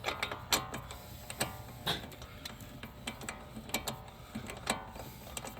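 Light metallic clicks and taps at irregular intervals, a few louder than the rest, from handling the brake caliper bracket and its E20 Torx bolts while lining the bolts up to start their threads.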